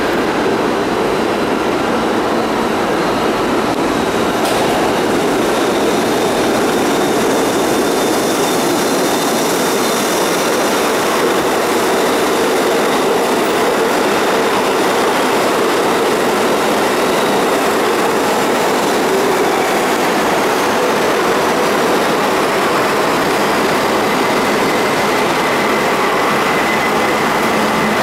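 Budd-built R32 stainless steel subway train pulling into an underground station, running steadily and loudly on the rails. Thin high-pitched squeals ride over it, settling into one steady squeal near the end as the train slows.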